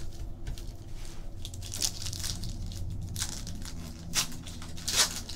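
Foil wrapper of a Topps Chrome baseball card pack being crinkled and torn open by hand, in short crackling bursts that start about two seconds in and are loudest near the end.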